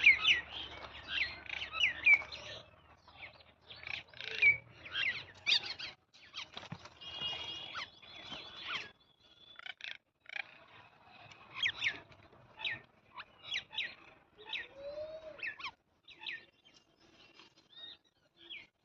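Several wild birds chirping in quick, irregular runs of short, sharp calls, with a held whistled note about seven seconds in and one lower call that rises and falls about fifteen seconds in.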